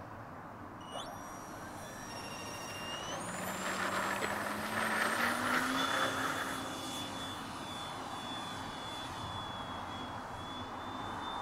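Radio-controlled model plane's motor and propeller throttling up for takeoff: a high whine comes in about a second in and rises in pitch, is loudest during the takeoff run, then holds as a steady high whine while the plane climbs away.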